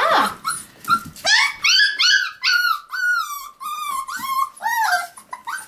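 A six-week-old Pomsky (Pomeranian–Husky cross) puppy whining: a quick run of about ten short, high-pitched cries, each rising and falling in pitch. The owner takes the whining as a plea for love and attention.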